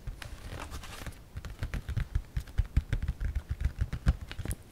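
Fingertips and nails tapping quickly and irregularly on the lid of an Acer Aspire 3 laptop close to the microphone, giving several light clicks a second with soft low thumps.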